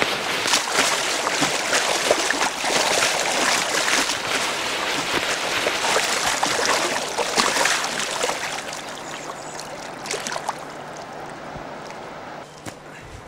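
Water rushing and splashing, loud and irregular for about eight seconds, then dying down to a quieter wash.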